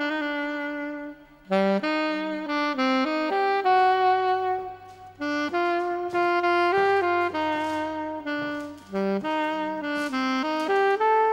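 Background music: a saxophone playing a jazzy melody in short phrases with brief pauses between them.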